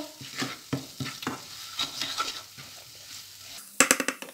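A black spatula scraping and stirring spice masala frying in oil in a non-stick kadhai, in uneven strokes over a faint sizzle, the heat kept low-medium so the spices don't burn. Near the end comes a quick run of sharp knocks, the loudest sound.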